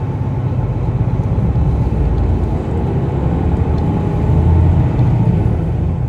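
Highway coach's engine and road noise heard inside the passenger cabin: a steady low rumble that swells slightly about four seconds in.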